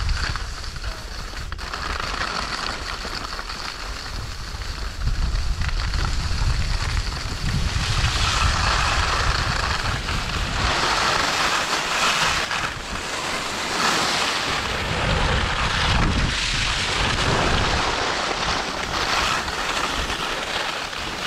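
Wind buffeting the microphone while skiing downhill, with the swish and scrape of skis turning on packed snow in repeated surges every second or two from about eight seconds in.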